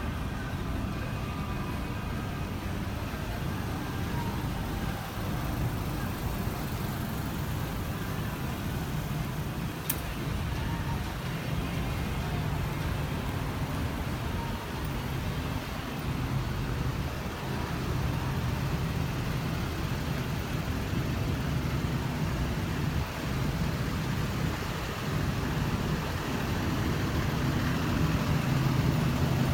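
Steady low rumble of outdoor background noise, strongest in the bass, growing a little louder near the end, with a single faint click about ten seconds in.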